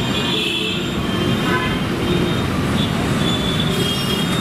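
Road traffic noise with short, high-pitched tones coming and going over it.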